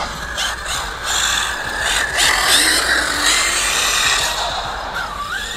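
ZD Racing 08425 1/8-scale brushless RC buggy being driven on asphalt: the electric motor's high whine rises and falls with the throttle, dipping briefly and climbing again near the end, over a steady hiss.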